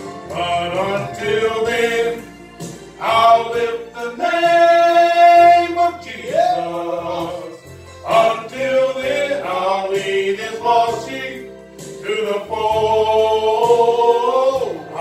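Men singing a gospel song over instrumental accompaniment, with a long held note about four seconds in and a steady bass line underneath.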